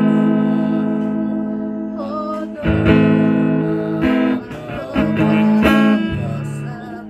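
Guitar chords strummed and left to ring, a new chord every second or so, the last one fading away near the end.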